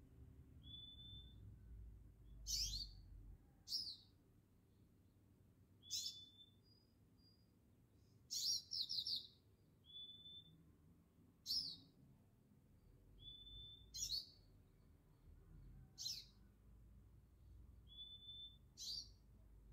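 Songbird calls repeating about every two seconds: short, clear, level whistles alternating with sharp, steeply sweeping notes, over a faint low rumble.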